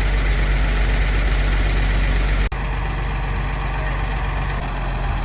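A heavy engine idling, a steady low rumble, with a brief break about halfway through.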